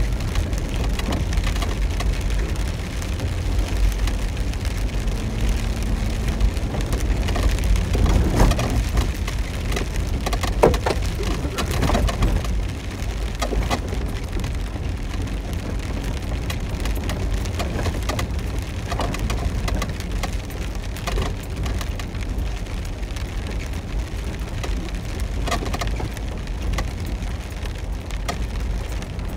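Heavy rain pattering on a vehicle's roof and windshield, heard from inside the cab, over the low rumble of the vehicle driving a wet dirt road. Scattered knocks and clatter come thickest about eight to twelve seconds in.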